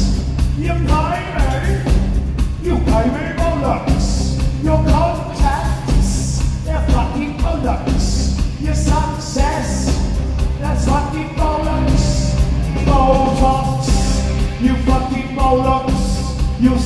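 Live post-punk rock band playing loudly: a man singing over heavy bass, guitar and a steady drum beat.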